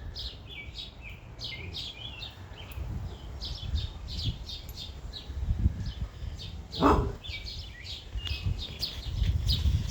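Small birds chirping, many short high chirps one after another, over a low rumble. There is a single sharp knock about seven seconds in.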